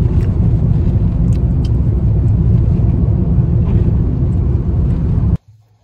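Loud, steady low rumble of road noise inside a moving car, cutting off suddenly near the end.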